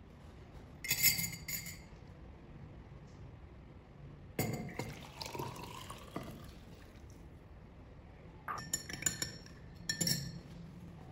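A metal spoon clinks against a bowl. A liquid is then poured from the bowl into a drinking glass, its pitch rising as the glass fills. Near the end, the spoon stirs the drink and clinks against the glass several times.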